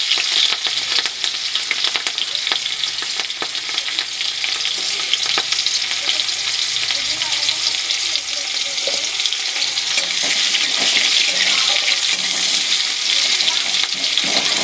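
Sliced onion and green chilli frying in hot oil in a kadhai: a steady sizzling hiss with many small crackling pops.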